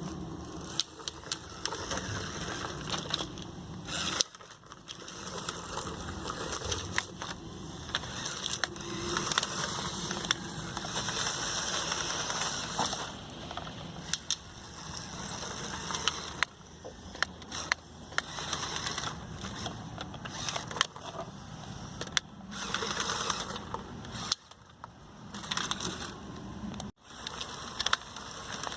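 Lego Technic RC truck with a hobby-style motor driving over rough ground. The motor and gear train run with a noisy whir, under many sharp clicks and knocks. The sound cuts out abruptly a few times.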